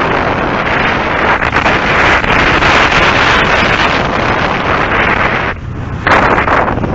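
Wind rushing over a helmet-mounted camera's microphone on a moving Suzuki GSX-R125 motorcycle, with the bike's running mixed in underneath. The rush drops away briefly about five and a half seconds in, then comes back at full strength.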